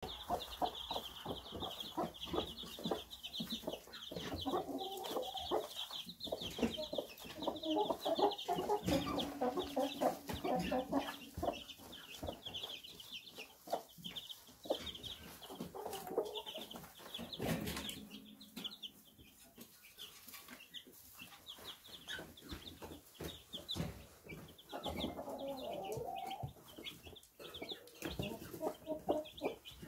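Young chicks peeping constantly in quick high chirps, with a hen clucking low in several stretches.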